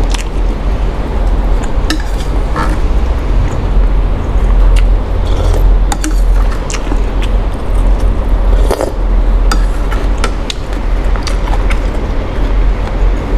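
Someone eating a bowl of noodle soup close to the microphone: scattered short clinks and scrapes of utensils against the bowl, over a steady low rumble.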